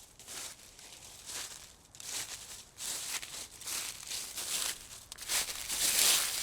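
Footsteps crunching on a loose surface such as dry leaves or gravel, about two steps a second, growing louder as they come closer.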